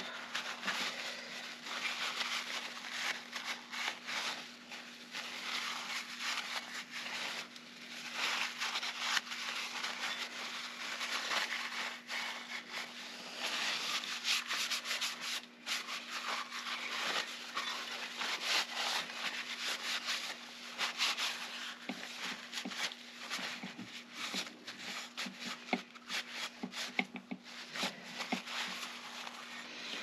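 Paper towel rubbing and scrubbing inside the metal case of an old Diebold safe lock, in irregular uneven strokes, wiping out built-up dirt and grime.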